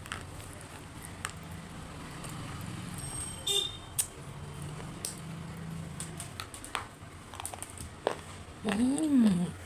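Sparse, sharp crunching clicks from food being bitten and chewed over a steady low background hum. A brief high tone sounds about three and a half seconds in, and near the end there is a louder pitched sound that rises and then falls in pitch.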